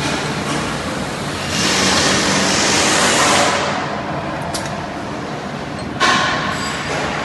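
Automatic scaffolding ledger welding machine running in a factory: a steady mechanical noise with a louder hissing stretch about two seconds in, and a sudden jump in level about six seconds in.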